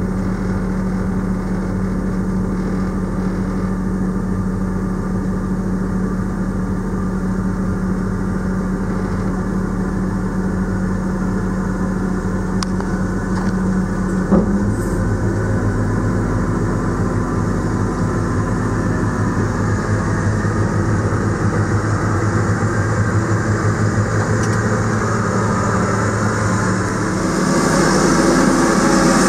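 Heavy-equipment diesel engines running steadily, heard from inside a machine's cab. The engine note shifts lower about halfway through, with a short knock, and the sound grows louder near the end.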